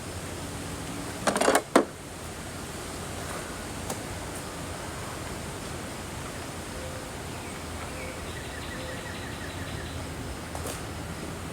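A quick cluster of two or three sharp clacks about a second and a half in, then steady background hiss.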